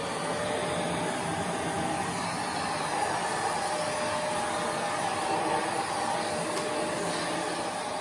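Shark Rotator Pro ZU782 upright vacuum in Lift-Away mode running steadily for a sound check: a constant rush of air with a faint steady hum, building to full speed in the first second.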